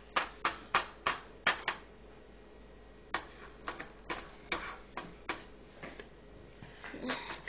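Tiny round pellets being tipped and tapped from a small cap into a shallow dish, giving a string of sharp clicks and ticks. There are two runs of clicks with a pause of about a second between them.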